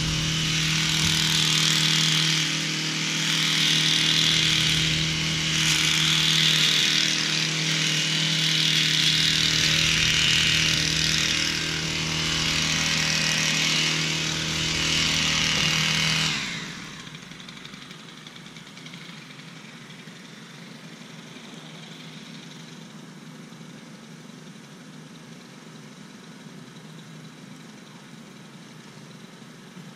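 A small petrol engine running at high speed, its note swelling and easing every couple of seconds, then shutting off about 16 seconds in, leaving only a faint steady background hum.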